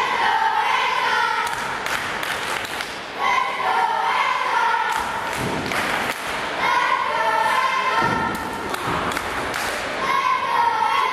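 Audience chanting in unison, the same short phrase repeated about every three seconds, with thuds from the wrestlers hitting the ring mat in between.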